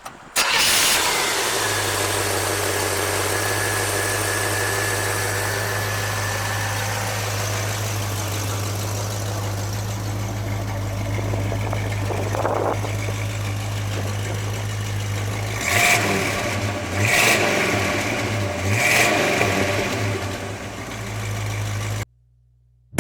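1979 Chevrolet Camaro Z28's 350 small-block V8, with an Edelbrock intake and four-barrel carburettor, starting and settling into a steady idle. It is revved three times in quick succession, then the sound cuts off suddenly.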